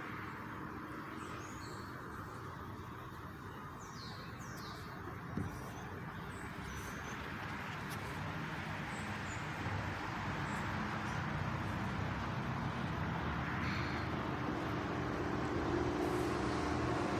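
Outdoor background: a steady rumbling haze that grows louder in the second half, with a few short bird chirps over it and a single sharp click about five seconds in.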